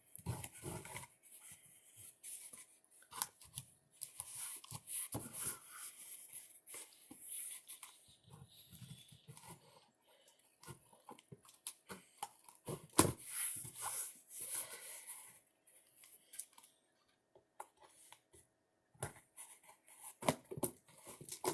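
A parcel's packing being cut and torn open with a makeshift tool instead of a knife: irregular scraping, clicks and ripping, with a sharp snap about 13 seconds in.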